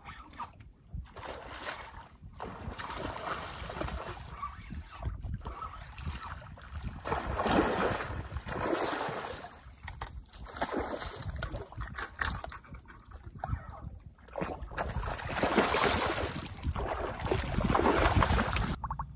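Lake water splashing and sloshing in surges around a wading angler, loudest about halfway through and again near the end, when a hooked snakehead thrashes at the surface. Wind rumbles on the microphone underneath.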